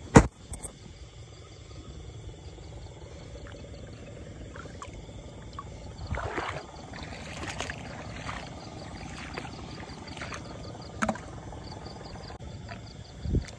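Night chorus of crickets and other insects, an evenly pulsing high trill over a steady hum, with frogs. A sharp knock comes just after the start, and rustling and sloshing from handling in the water come about six to eight seconds in.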